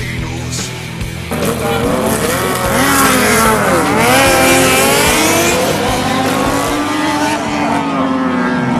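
Several racing motorcycle engines revving as they pass, their pitch falling and rising, then settling into a steadier drone in the second half.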